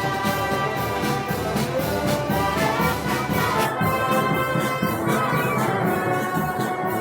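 Brass band playing Moros y Cristianos festival music, with held brass notes in several parts. The sound turns less bright about four seconds in.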